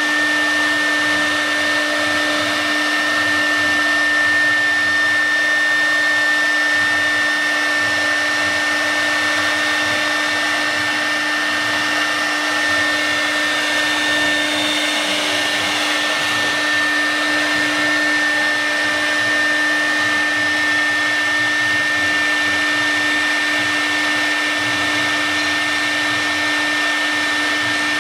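CNC wood router spindle running steadily while its bit carves into a wood board: a constant-pitch whine over an even cutting hiss.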